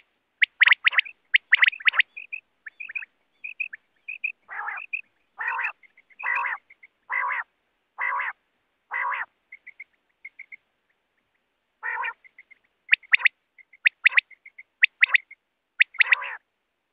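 Common quail calling: sharp repeated calls, soft short pips, and a middle run of six longer, coarse calls about a second apart, then sharp calls again near the end.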